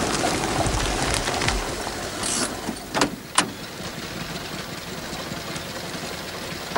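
Vintage saloon car's engine running as the car drives up and slows to a stop, then idling quietly. A short rasp comes just after two seconds, and two sharp clicks about three seconds in as the door latch is worked and the door opened.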